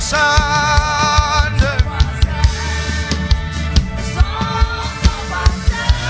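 Gospel worship music: a man's voice holds a sung note with vibrato for about the first second and a half over a band with a drum kit keeping a steady beat and a low bass, then the band plays on with only faint vocal lines.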